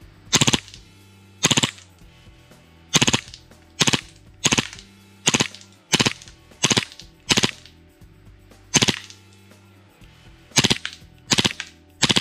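Novritsch SSP18 gas blowback airsoft pistol firing on full auto: about a dozen short bursts, each a rapid clatter of a few shots, spaced roughly a second apart.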